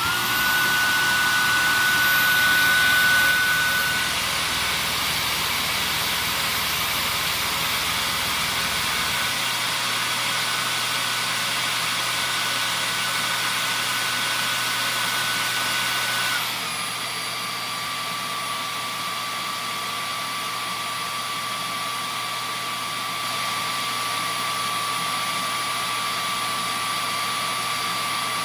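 Dyson Ball Animal upright vacuum cleaner with a Fluffy soft roller cleaner head switching on and running, a steady rushing noise with a high motor whine. About sixteen seconds in, the whine steps down in pitch and the sound gets slightly quieter.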